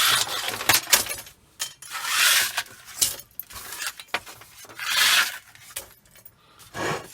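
Small pieces of mixed scrap metal scooped from a tub and spread across a steel work plate, jangling and clinking in four or five scraping bursts a second or two apart.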